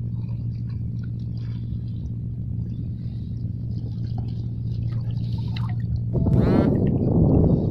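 Shallow seawater sloshing and dripping around someone wading over a reef flat. About six seconds in, a louder low rush of wind on the microphone takes over.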